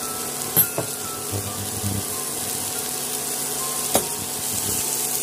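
Chopped onions and tomatoes sizzling steadily in hot oil in a frying pan. Two sharp clicks, about half a second in and near four seconds in.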